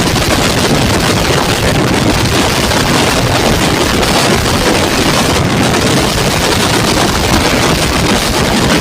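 Bajaj Pulser 220 motorcycle ridden at high speed, its single-cylinder engine running steadily under heavy wind noise on the microphone.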